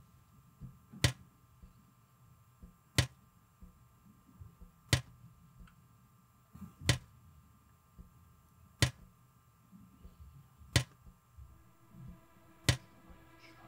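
Water drops falling from a kitchen faucet into a stainless-steel sink, one sharp drip about every two seconds, seven in all. A low steady tone comes in near the end.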